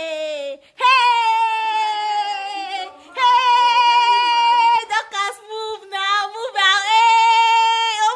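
A high female voice singing unaccompanied, holding long drawn-out notes that sag slightly in pitch, in phrases of about two seconds, with a few shorter notes in between.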